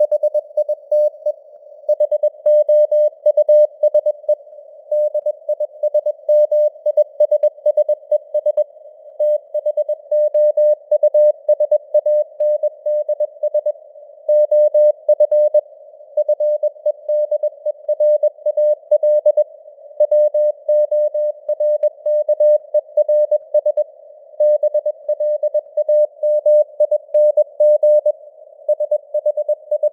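Morse code sent at 21 words per minute: a single mid-pitched CW tone keyed on and off in dots and dashes, over a band of simulated radio static hiss.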